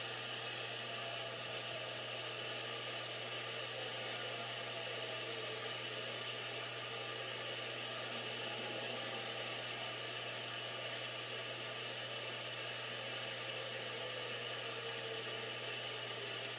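Distant tornado warning siren faintly wailing, its pitch slowly rising and falling, under a steady rushing noise that is the loudest thing heard.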